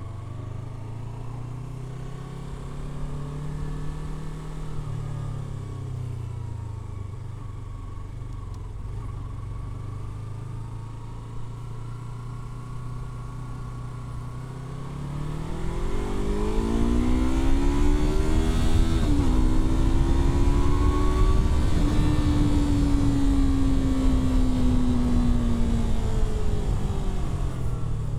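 Yamaha R3's 321 cc parallel-twin engine from the rider's seat, running at low revs for about fifteen seconds, then revving hard as the bike accelerates. Near the middle of the pull the pitch dips briefly at a gear change; the revs then ease off slowly and drop back low near the end.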